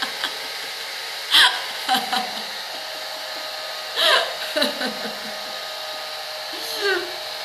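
Handheld hair dryer blowing steadily, drying fresh paint, with a few short bursts of a woman's laughter over it.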